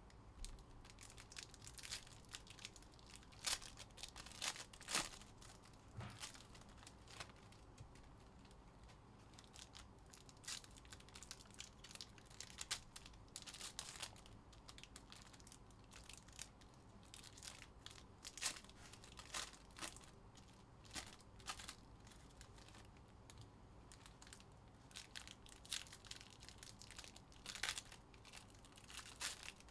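Foil wrappers of Panini Donruss basketball card packs crinkling and tearing as they are ripped open by hand, in scattered sharp crackles and rips.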